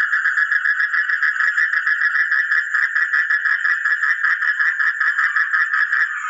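A fast, even, unbroken train of pulsed animal calls, about eight pulses a second, like a frog or insect calling. It is the 'strange sound' offered for the viewer to identify.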